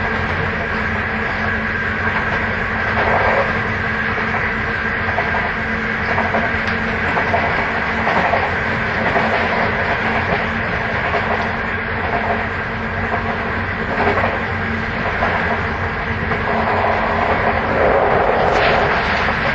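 Sotetsu 8000 series electric motor car MoHa 8107 running at a steady speed, with a steady high whine, the car's jet-engine-like abnormal noise, over the wheel-and-rail rumble and regular clacks from the rail joints.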